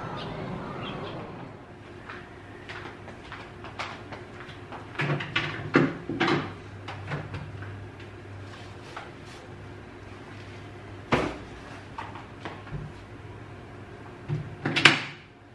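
Household handling sounds at a kitchen shelf: scattered clicks, knocks and cloth rustles as a fabric apron is taken down and unfolded. There is a cluster of louder clatters about a third of the way in, one sharp knock about two-thirds in, and a louder rustle near the end, over a low steady hum.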